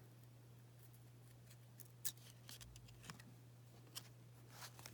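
Faint handling sounds of glossy baseball trading cards being shuffled and pulled apart where they stick together: a few short, scattered clicks and rustles.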